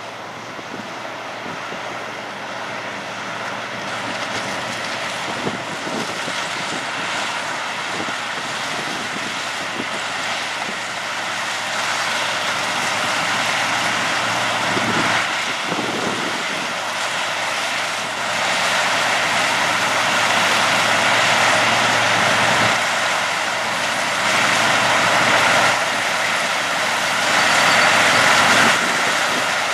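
Sugarcane harvester working in the field, a dense, steady mechanical noise over its diesel engine that grows gradually louder.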